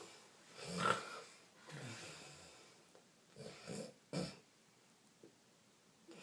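A man snoring: four rough, horse-like snores in the first four and a half seconds, the last one short and sharp.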